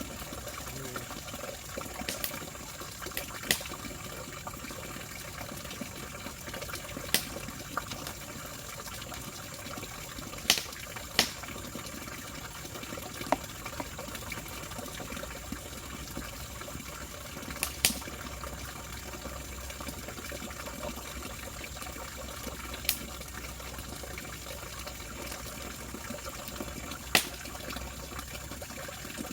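Steady rushing water noise, with about ten sharp, isolated clicks or knocks scattered through it.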